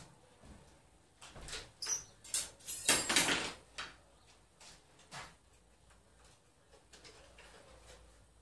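Scattered knocks, clatter and scraping of tools and wood being handled, with a short cluster of louder rattling about three seconds in.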